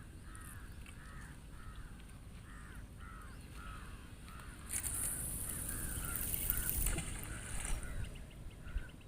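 A crow cawing over and over, about two calls a second. About five seconds in, a hissing rush of sloshing water lasts about three seconds and is the loudest sound.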